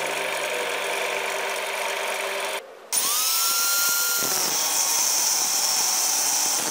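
Drill press running after drilling a steel rod. About three seconds in, an angle grinder spins up with a rising whine and cuts into a steel rod with its cut-off disc.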